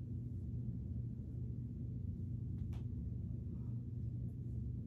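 Steady low background hum with no speech, and one faint click about two and a half seconds in.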